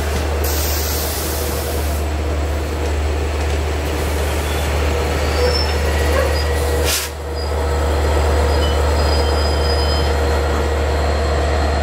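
LIRR C3 bilevel passenger cars rolling past as the train pulls out, pushed by a DE30AC diesel-electric locomotive at the rear: a steady low drone and rumble of wheels on rail with faint wheel squeals. There is a brief high hiss in the first two seconds and a short dip in loudness about seven seconds in. The locomotive comes alongside near the end.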